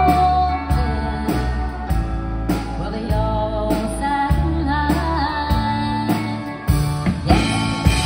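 Live country band playing with a woman singing lead over drum kit, electric bass, fiddle and keyboard. Near the end a few sharp drum hits stand out.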